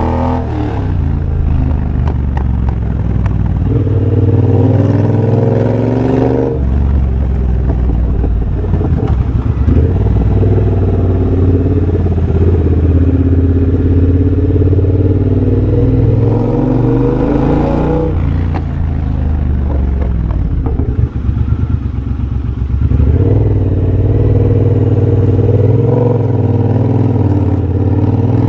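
2023 Triumph Bobber's 1200cc parallel-twin engine through a de-catted X-pipe and Motone Shorty exhaust, pulling hard several times with the pitch rising each time. Between the pulls it drops off throttle and the exhaust crackles and pops on the overrun.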